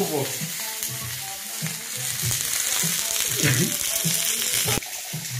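Thick Black Angus rib steak sizzling in a hot frying pan as its fat renders out. The sizzle steps down sharply near the end.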